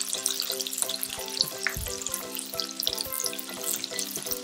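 Rehydrated tofu skin (yuba) strips frying in hot oil in a small pan: a steady crackling sizzle of many small pops as the pieces crisp. Soft background music plays under it.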